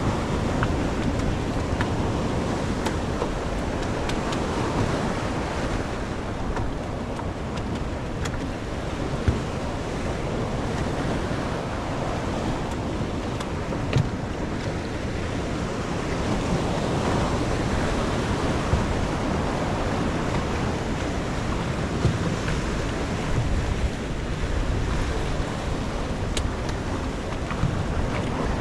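Steady wind and water noise: wind buffeting the microphone over the wash of water against the jetty, with a couple of brief knocks.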